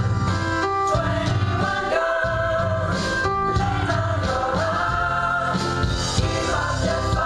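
A women's gospel choir singing in harmony, with piano and guitar accompaniment.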